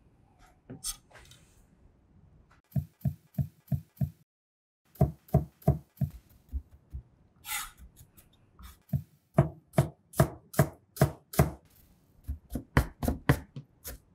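Chef's knife chopping vegetables and mincing garlic on a cutting board, in quick runs of evenly paced strokes about three to four a second, with one brief scrape of the blade about halfway through.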